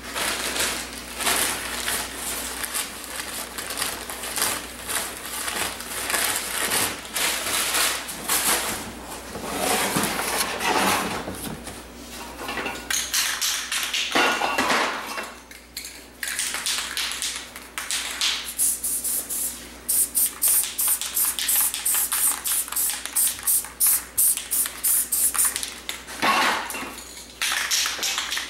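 Crumpled newspaper crackling and rustling, then an aerosol spray paint can hissing in many quick short bursts, about three a second, from about halfway through.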